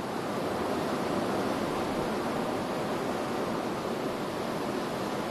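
Steady rushing wash of sea surf, an even noise without separate breaks or knocks.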